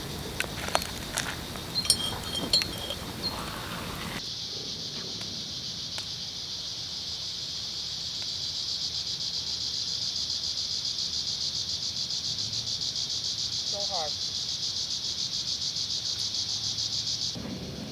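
Night insects chorusing in a steady, rapidly pulsing high-pitched trill that starts abruptly about four seconds in and stops suddenly near the end. Before it, scattered sharp clicks and crackles.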